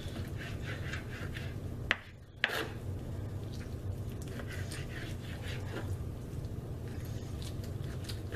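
Kitchen knife slicing raw chicken breast into strips on a plastic cutting board: a run of short, soft cutting strokes over a steady low hum. About two seconds in there is a sharp click, a half-second gap and another click.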